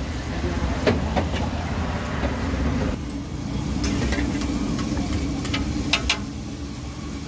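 Metal utensils knocking and scraping on a flat iron griddle and a steel plate as pav bhaji is scooped and served, a handful of sharp clinks, the loudest a double knock about six seconds in. A steady low rumble runs underneath.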